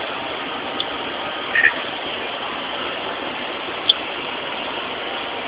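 Steady background noise, like a running motor or distant traffic, with a few short high chirps or ticks: one just under a second in, a quick double chirp about a second and a half in, and another about four seconds in.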